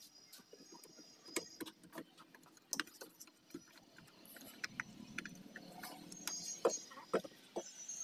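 Scattered light clicks and knocks as a car door's trim panel and the wiring inside the door are handled.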